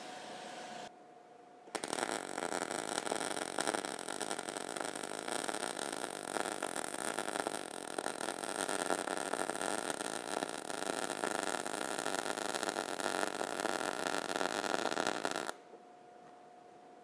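MIG welding arc with C25 shielding gas crackling and sizzling steadily as a bead is run across quarter-inch plate, set at 325 inches per minute wire feed and 21 volts. The arc strikes about two seconds in and cuts off sharply near the end.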